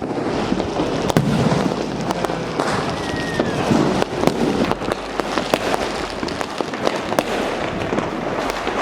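Firecrackers bursting all around in quick succession: many sharp cracks and pops overlapping into a continuous crackle.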